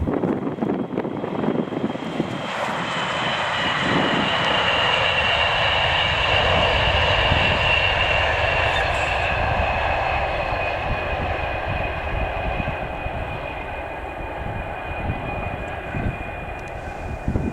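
Virgin Trains East Coast express train passing at speed: a rushing of wheels and air that builds, is loudest about seven seconds in, then fades, with a high whine that slowly falls in pitch.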